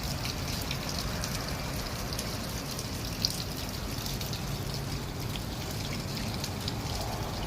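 Steady rain falling, with many individual drops ticking on nearby surfaces over a constant low rumble of heavier rain.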